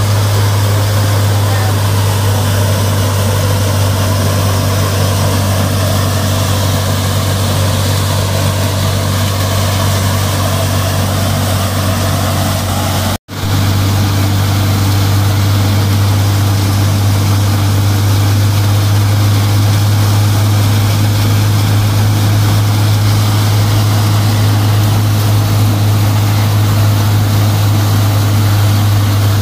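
Tractor-driven multi-crop thresher running under load while threshing, with the 55 hp tractor's diesel engine driving it. It makes a loud, steady low hum. The sound cuts out for an instant about thirteen seconds in.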